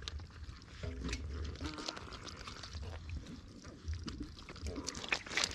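Wet squelching, slapping and clicking of live catfish being handled in mud and water, with the fish shifting and flapping.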